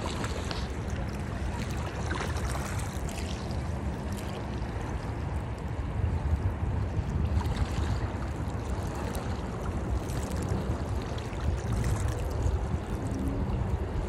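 Small waves lapping and washing over plants at the water's edge, with a steady low rumble of wind on the microphone.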